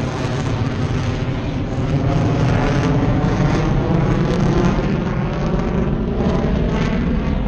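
Loud, steady jet noise from an F/A-18E Super Hornet's two GE F414 turbofan engines as the aircraft flies its display.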